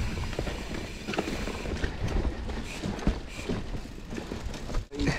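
Mountain bike rattling over wet rocks and roots, with a run of irregular knocks and clatter from the wheels and frame under a steady rumble. The sound cuts out for an instant near the end.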